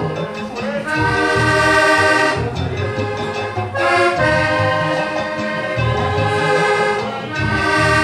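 Button accordion playing a slow vallenato melody in held notes over a steady pulsing bass accompaniment.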